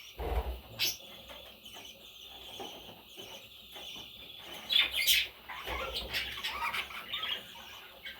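Pet parrots chirping and squawking in short, scattered calls, with a pair of loud sharp calls about five seconds in. There are a few soft thuds among them.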